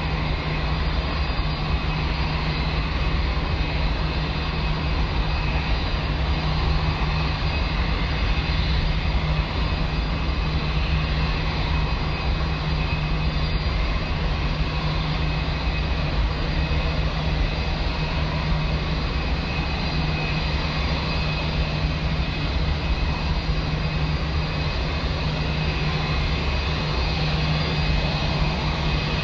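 Airbus A320-232's IAE V2500 jet engines running steadily at taxi idle: a constant rush with a thin high whine over it.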